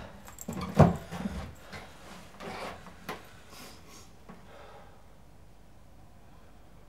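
A few short clicks and knocks with rustling, from someone moving and handling things close to the microphone, the loudest just under a second in. After about four seconds it dies away to quiet room tone.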